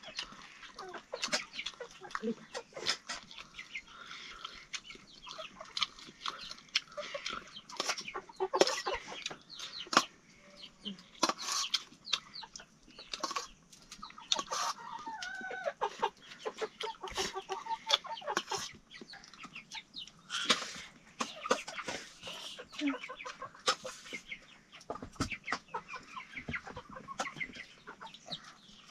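Domestic chickens clucking, with many short clicks and knocks scattered throughout.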